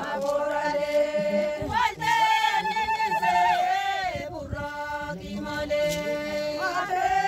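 Chant-like singing in long held notes that slide up and down between pitches, with more than one voice line heard at once.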